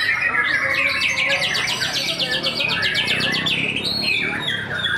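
White-rumped shama (murai batu) singing: varied whistled phrases, and from about one second in a fast rattle of evenly repeated high notes lasting about two and a half seconds.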